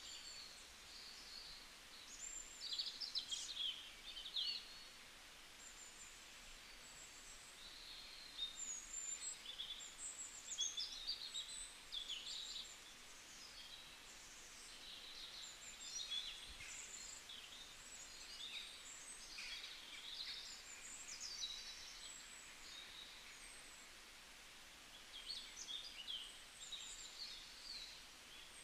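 Birds chirping and twittering faintly in short, irregular runs of high, quick chirps over a low steady hiss.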